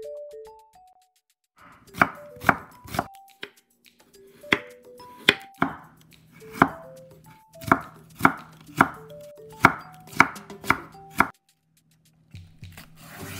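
Chef's knife slicing a carrot on a wooden cutting board: about a dozen sharp knocks of the blade striking the board, coming a little over one a second, which start about two seconds in and stop near the end.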